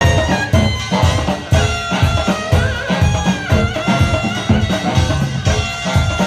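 Fusion gugak (Korean traditional fusion music): drums with a steady beat under a sustained, sliding melody line.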